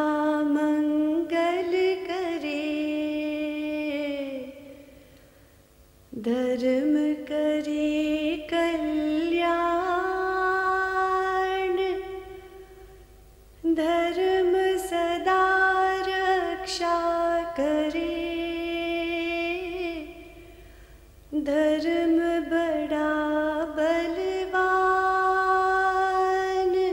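A single voice chanting unaccompanied in long, slowly drawn-out held notes: four phrases with short pauses between them.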